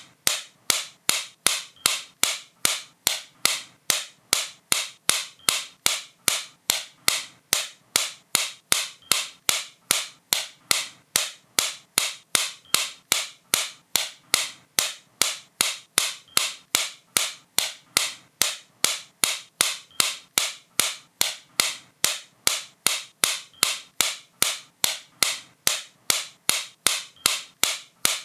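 Sharp, dry clicks repeating at a steady even pace, a little more than two a second.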